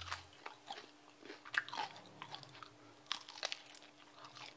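Biting and chewing crispy deep-fried food: irregular crisp crunches, a few louder ones among softer crackles.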